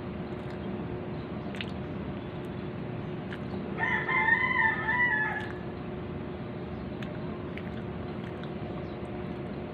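A rooster crowing once, a single call of about a second and a half near the middle, over steady background noise.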